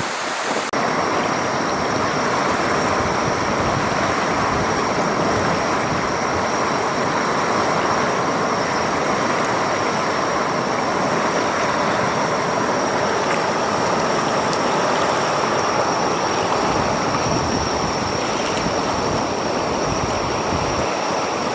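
Loud, steady rush of water in very heavy typhoon rain. A faint, steady high whistle sets in under a second in and runs on over it.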